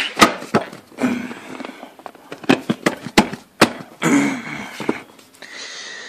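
Toyota Land Cruiser Prado plastic lower dash trim being handled and fitted back into place: about half a dozen sharp clicks and knocks, most of them between two and four seconds in, with scraping and rustling of handling between them.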